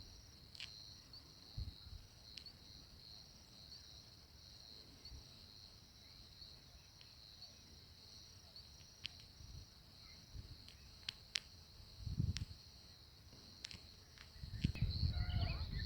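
A faint, steady, high-pitched chorus of insects chirping, with a few sharp clicks and low rumbles, the rumbles strongest near the end.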